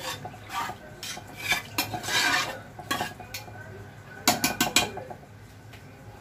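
A metal spoon stirs and scrapes in an aluminium pressure cooker with spices frying in oil. About four seconds in comes a quick run of sharp metal clinks.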